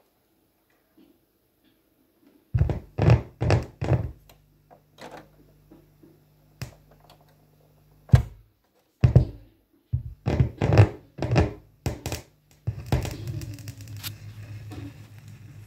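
Turntable with a red vinyl LP being cued up: a string of heavy thumps and clicks at uneven gaps, then near the end a steady low continuous sound sets in as the record plays.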